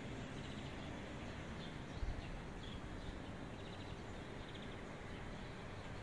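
Outdoor street ambience: a steady low rumble with a few short, high bird chirps and trills scattered through it. A brief low bump comes about two seconds in.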